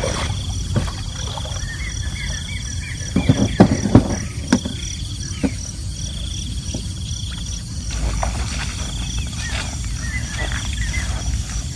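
Feet wading through shallow lake water, with a cluster of louder knocks and splashes about three to four seconds in. Underneath is a steady outdoor background of insects and birds calling.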